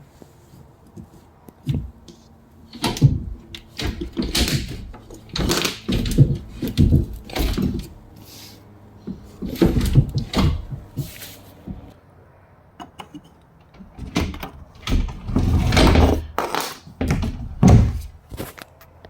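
Toys being handled and moved about: a string of knocks, clatters and rustles in clusters, starting about two seconds in, with some door-like thuds.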